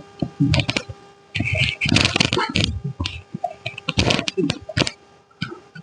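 Rustling and a run of sharp knocks and clicks as a patient's body is shifted and handled on a chiropractic treatment table, over a faint steady hum.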